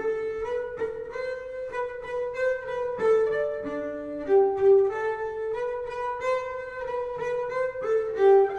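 Double bass played with the bow, a slow melody of clear, high, sustained notes played in harmonics, changing pitch every half second to a second.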